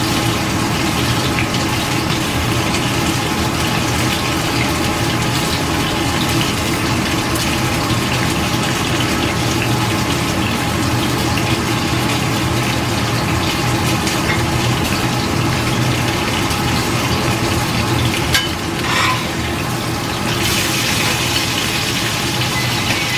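Steady loud rushing hum of water heating on a stovetop burner. About twenty seconds in, a hiss of steam from the kettle joins it.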